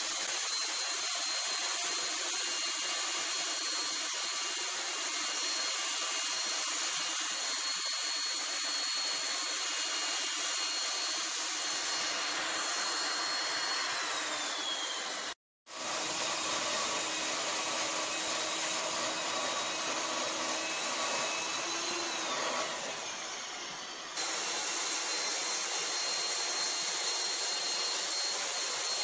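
Core cutting machine running with a 3-inch core bit boring into reinforced concrete: a steady high motor whine over a grinding noise. Twice the whine slides down in pitch, and the sound breaks off for an instant midway.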